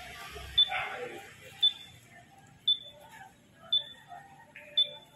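A short, high electronic beep repeating evenly about once a second, with faint background voices.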